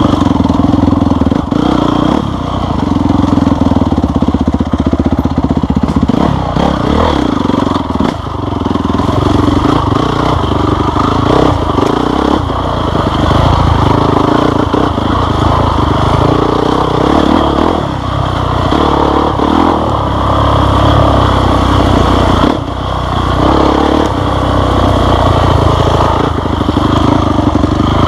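Off-road motorcycle engine being ridden hard on a dirt trail, the revs rising and falling again and again as the rider works the throttle, with rattling and clatter over the rough ground.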